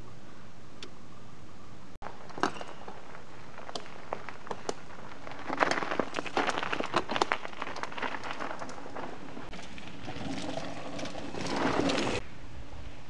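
Footsteps crunching on loose gravel, a quick run of sharp crunches from about five and a half to eight seconds in, over a steady background hiss. Near the end a rising rush of scraping noise that cuts off suddenly.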